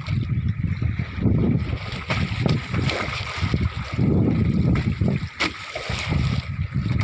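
Wind buffeting the microphone in gusts over open sea, with water sloshing against a small boat and a few sharp clicks.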